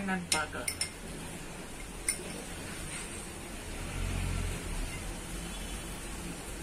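Metal spoon clinking against a small glass bowl, several quick clinks in the first second and one more about two seconds in, as the spoon scoops from the bowl.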